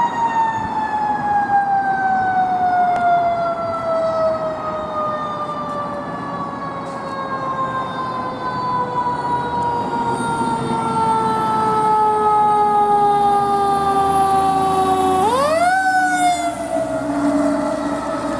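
Fire engine siren wailing: one long tone that falls slowly in pitch for about fifteen seconds, then is wound sharply back up about fifteen seconds in and falls away again as the engine passes.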